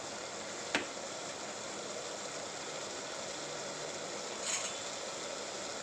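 Onions and tomatoes sizzling steadily in hot ghee in a pressure cooker over a high flame, with one sharp click just under a second in.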